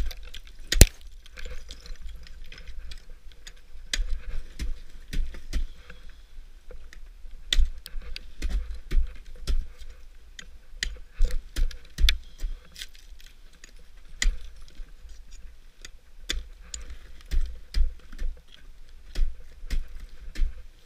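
Ice axe picks striking and biting into brittle waterfall ice in an irregular run of sharp knocks and ticks, each with a low thud. The loudest strike comes about a second in.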